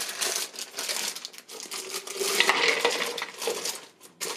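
Frozen berries poured from a plastic bag into a clear plastic blender cup: hard frozen fruit clattering and rattling into the cup, loudest about halfway through, with the bag crinkling.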